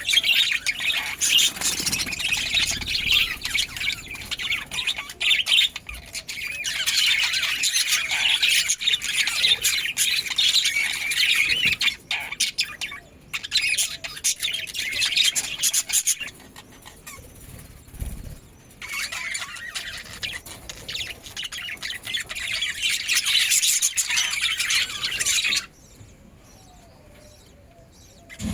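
Budgerigars chattering and chirping in a dense, rapid stream of high twittering calls, easing off briefly twice and falling quiet for the last few seconds.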